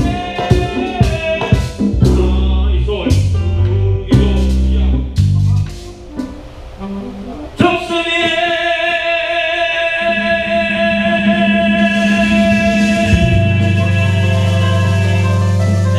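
Live band playing during a rehearsal sound check: a punchy rhythmic figure of drum and bass hits for about six seconds, a short drop-off, then one long held chord, with a low bass note joining near the end.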